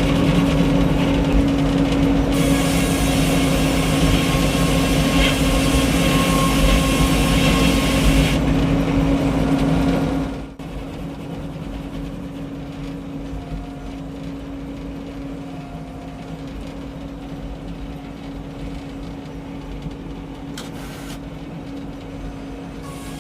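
Frick circular sawmill running loud and steady, with a high hiss for several seconds as the blade cuts through a white pine log. About ten seconds in the sound drops abruptly to a quieter steady hum of the mill running without a cut.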